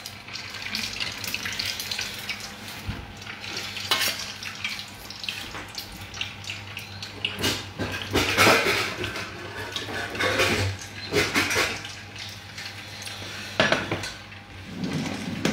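An arancina deep-frying in a steel pot of hot oil, the oil bubbling steadily, with scattered clinks and knocks of cookware.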